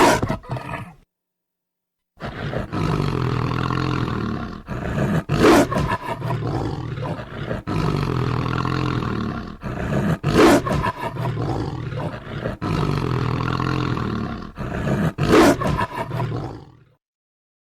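Werewolf growling and snarling sound effect: a low, continuous growl with three louder snarls about five seconds apart. It fades out near the end. A short snarl ends about a second in, followed by a brief silence before the growl starts.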